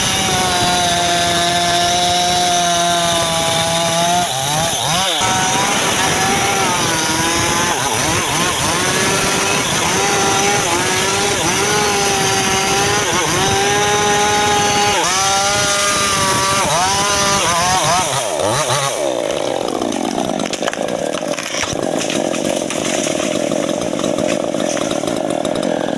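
Mini chainsaw running and sawing wood, its pitch rising and falling as it works through the cut, with two sharp dips in speed. Later on the steady pitch gives way to a rougher, noisier sound.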